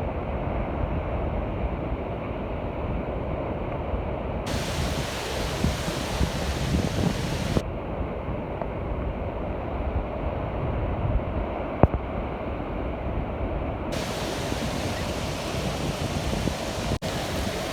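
Storm surf on the sea, waves breaking and washing ashore in a steady rush, with wind buffeting the microphone. A single sharp click about two-thirds of the way through.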